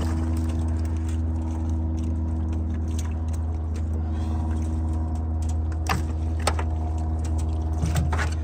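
A motor runs steadily with a low, even hum. Over it, a cast net is handled in an aluminium johnboat, and its lead weights clink against the hull a few times, most clearly about six seconds in and near the end.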